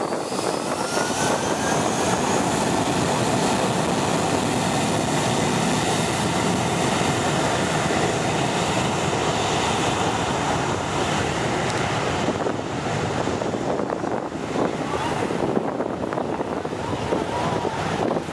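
An Airbus A320's twin IAE V2500 turbofan engines spooling up to takeoff power: a whine rising in pitch over loud, steady jet noise as the airliner starts its takeoff roll. The sound thins out after about twelve seconds as the aircraft moves away down the runway, and wind buffets the microphone.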